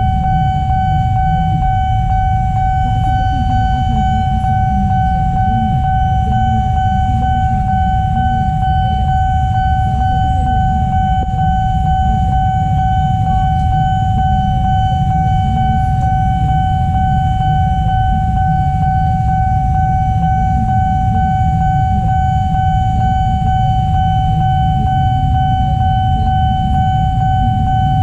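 Level-crossing warning alarm sounding one steady, unbroken high tone, over the low rumble of motorcycles idling at the closed gate.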